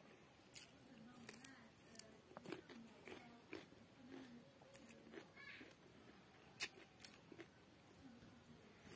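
Quiet eating sounds: soft clicks and rustles of fingers picking at food on a banana leaf, and chewing.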